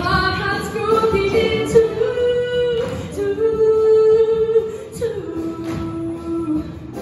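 Mixed show choir singing with accompaniment, holding long sustained notes; the sung pitch steps down to a lower note about five seconds in.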